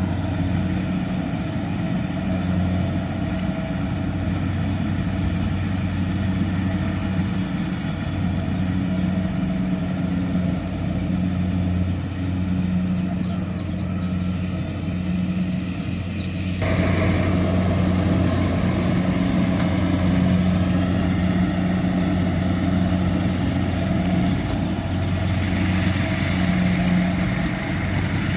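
Rice combine harvester's diesel engine running steadily with a deep hum. It grows noisier about sixteen seconds in.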